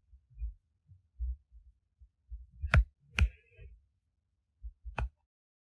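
Footsteps on the forest floor: a series of soft low thuds, then two sharp snaps close together near the middle and a third near the end, with stretches of dead silence between them.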